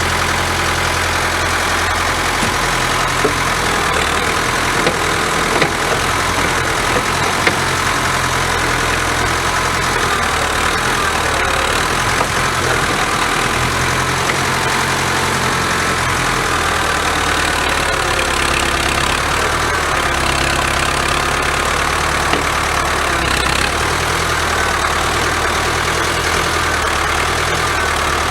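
Backhoe loader's diesel engine running steadily, its low note shifting a few times as the load changes, with a few light knocks in the first several seconds.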